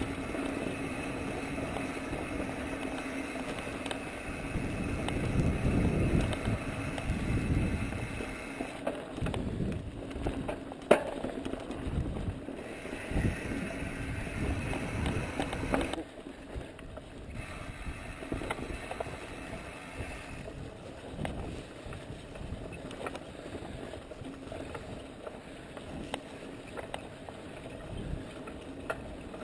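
Mountain bike rolling down a dirt singletrack: tyre noise on the dirt and gravel, the bike rattling over bumps, and wind rumbling on the microphone. One sharp knock about 11 seconds in; the noise gets quieter about 16 seconds in.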